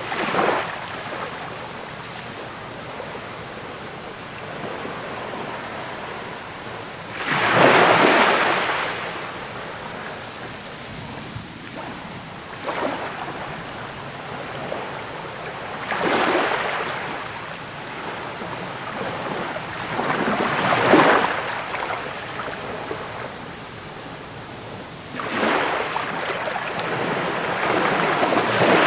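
Ocean surf: waves breaking and washing in as foam over a steady hiss of water, swelling every few seconds.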